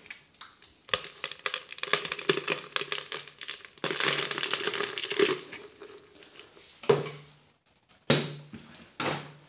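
Crumbled dry dog kibble rustling and rattling as it is poured and sifted by hand in a plastic bucket, followed near the end by three separate knocks as the plastic blender container is handled.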